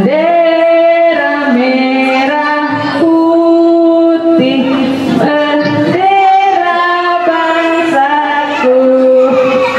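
A woman singing an Indonesian patriotic song into a microphone, with young children singing along. The notes are held long and change about every second.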